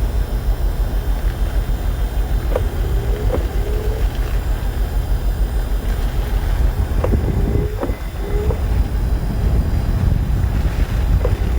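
Storm wind buffeting and a steady low rumble heard from inside a Jeep. A short knock with a brief squeak recurs about every four and a half seconds.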